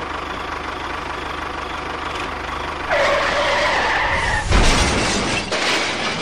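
A tractor engine chugging with a steady low pulse. About three seconds in, a held horn-like tone sounds for about a second and a half, followed by a heavy thump and a burst of rough noise that fades.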